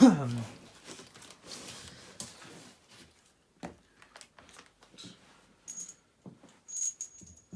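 Bolts and an Allen wrench being handled while a TV stand is fitted: scattered clicks and rustling of protective plastic, with a few small high metallic clinks near the end. It opens with a brief loud sound that drops quickly in pitch.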